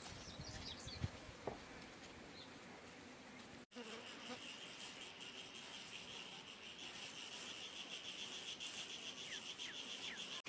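Faint outdoor background with a few light knocks; then, after an abrupt cut about four seconds in, a steady high-pitched drone of insects.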